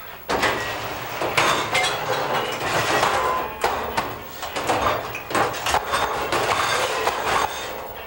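Commercial hood-type dishwasher running a wash cycle: a loud spray of water on a rack of plates, with rattling and clanking. It starts abruptly and dies down near the end.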